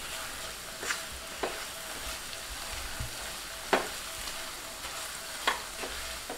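Chopped citron frying in sesame (gingelly) oil in a nonstick pan, sizzling steadily while a silicone spatula stirs it. There are a handful of short, sharp knocks of the spatula against the pan, the loudest a little past halfway.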